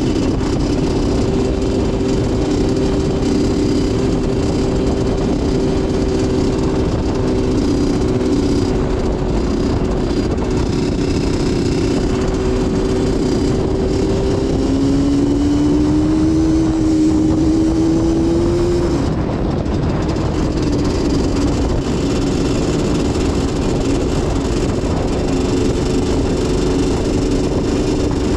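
Yamaha Banshee's twin-cylinder two-stroke engine running under way at a steady cruise. A little past the halfway point its pitch climbs for about four seconds as it picks up speed, then settles again. A steady low rush sits beneath it throughout.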